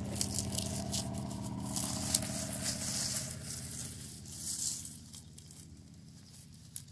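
Dry garlic leaves and stalks rustling and crackling as the plants are gripped and pulled out of the soil. Under it runs a steady engine-like hum that fades away about five seconds in.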